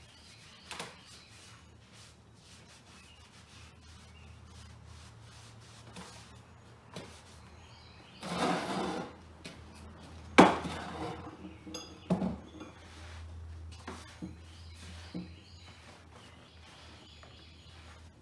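Oily rag rubbing over a cast steel anvil, with scrapes and knocks of the anvil and tools on a wooden workbench as it is shifted around; a scrape about eight seconds in is followed by a sharp knock, the loudest sound, and a few smaller ones.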